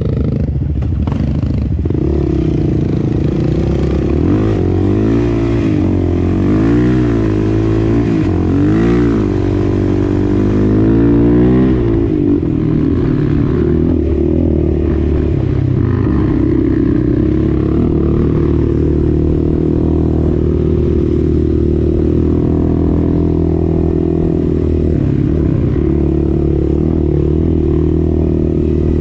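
Sport ATV's single-cylinder four-stroke engine under way, revving up and down several times as the throttle is worked, then running at a steady pitch from a little under halfway in.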